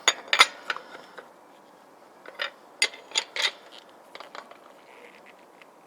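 Steel lug wrench clinking and clicking on the wheel's lug nuts as they are snugged down by hand, a quick cluster of sharp metallic clicks at the start and four more a second or so later.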